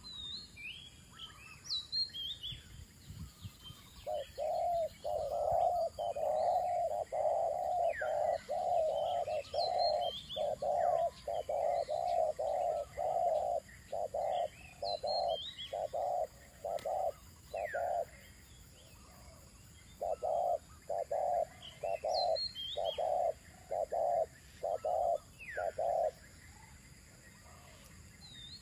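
Spotted dove cooing: a long run of short, quickly repeated coos about two a second, starting about four seconds in, pausing briefly, then going on again until near the end. Other small birds give short, high, falling chirps over it.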